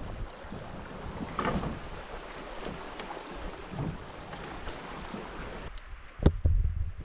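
River water rushing over a shallow riffle, a steady wash with wind buffeting the microphone. Near the end the rushing stops abruptly, leaving a few sharp knocks and low wind gusts.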